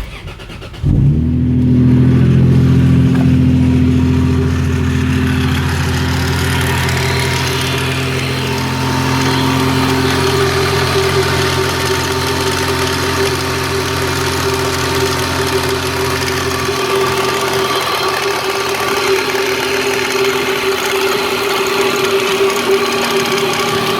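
Lexus SC300's 2JZ-GE inline-six cranked on the starter and catching within a second, running slightly faster at first and then settling into a steady idle. It runs with the ticking from up top that the owner suspects comes from a loose timing belt and tensioner, the belt out of time, or valve lifters.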